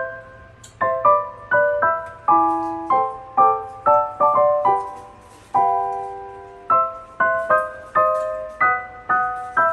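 Background music: solo piano playing a gentle melody of chord-like notes, about two a second, each ringing and fading.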